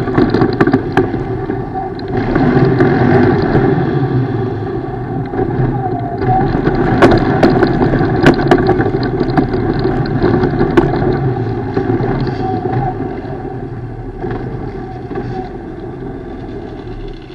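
ATV engine running off-road, its revs rising and easing off, with several sharp knocks along the way. It fades gradually toward the end.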